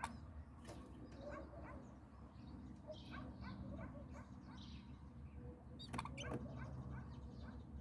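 Small birds chirping: many short, high calls scattered throughout, with a sharper burst of calls about six seconds in.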